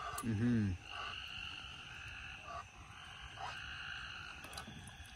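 A steady chorus of night creatures, with one short, low call about half a second in that rises and falls in pitch.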